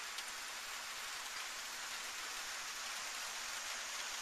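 Light rain falling, a steady even hiss.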